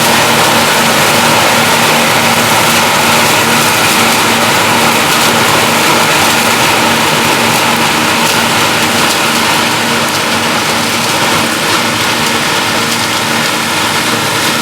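John Deere 6620 combine running steadily, its diesel engine and machinery making a dense, continuous noise with a steady hum. The sound eases off slightly over the last few seconds.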